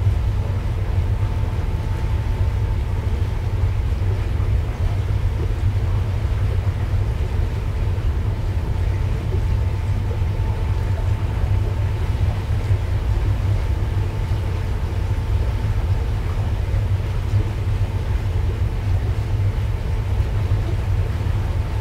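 Steady low rumble of the MV Sea Venture under way at slow speed, with a faint steady hum from its machinery.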